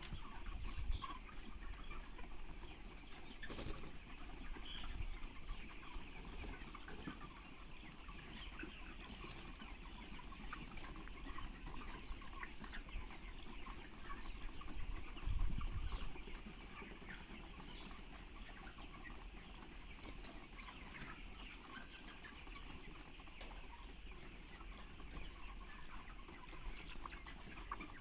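A flock of 35-day-old broiler chickens, many birds peeping and clucking at once in a steady chatter. A brief low rumble comes about halfway through.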